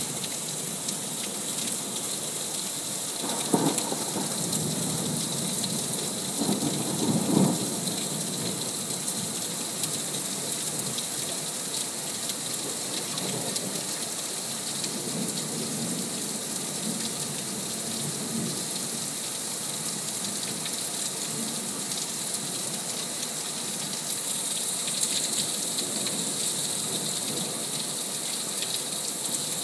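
Heavy rain pouring steadily in a thunderstorm, with thunder rumbling twice within the first eight seconds and more faintly around the middle.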